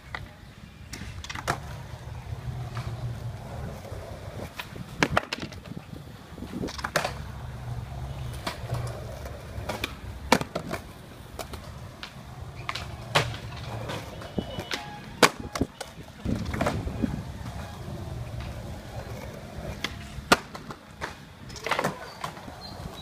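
Skateboard wheels rolling over concrete with a steady low rumble, broken every few seconds by sharp clacks of the board striking the concrete ledges and ground.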